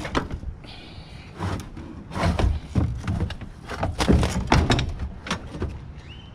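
Irregular metal clanks and thunks, with a brief scrape about a second in, as the coil is worked loose and slid out of a closet air-conditioning unit's sheet-metal cabinet.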